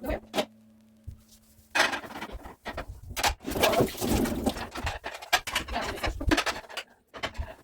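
Irregular clatter, knocks and rustling as household items are handled and wiped during cleaning. A low steady hum stops about two seconds in.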